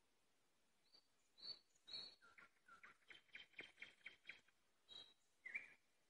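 Nightingale singing. Its phrase begins about a second in with a few whistled notes, then a fast run of sharp repeated notes at about five a second, and ends with a couple of separate louder notes.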